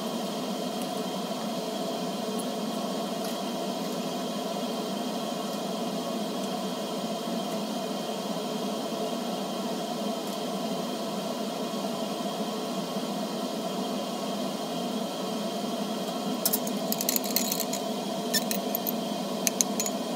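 A steady mechanical hum runs throughout. Near the end, a quick run of sharp clicks and taps: glass on glass as the beaker is picked up and a glass rod or pipette knocks against it.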